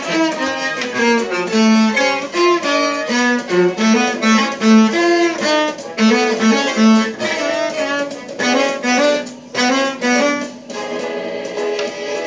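Violin music: a quick, lively tune of short notes over lower string notes.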